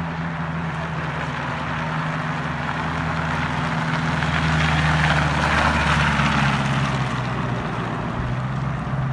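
Engine of a Mustang fitted with an Eaton M90 supercharger, running with a steady low drone. A rush of noise swells and fades about four to seven seconds in.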